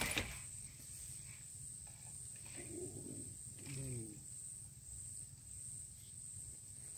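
Faint, steady high-pitched insect drone, with two brief faint murmurs like a distant voice near the middle.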